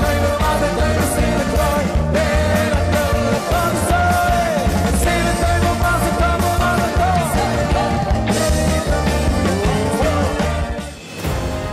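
Upbeat dance music with a steady driving beat and a sung melody. About eleven seconds in it drops away briefly and a different piece of music begins.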